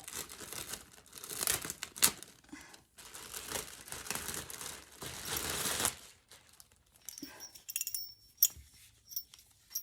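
Packaging bag crinkling and rustling in irregular bursts as a horse halter is unwrapped, giving way after about six seconds to fainter scattered clicks and ticks.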